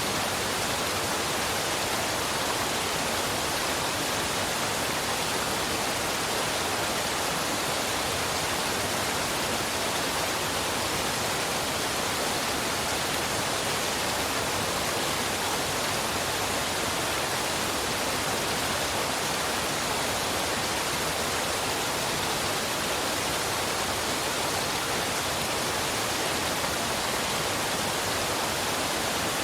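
Waterfall and river water rushing in a steady, even hiss that never changes.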